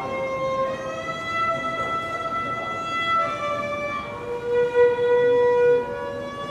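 Solo violin playing a slow melody of long, held notes, each lasting a second or two, with a louder low note held near the end.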